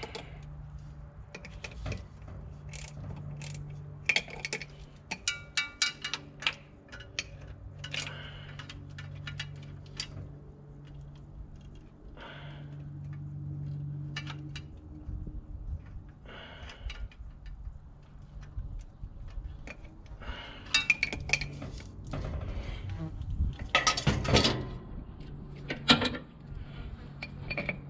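Hand tools and bolts clinking and tapping against the metal of a truck engine as fasteners are fitted and snugged up, a run of scattered clicks that grows busier and louder near the end. A steady low hum runs underneath.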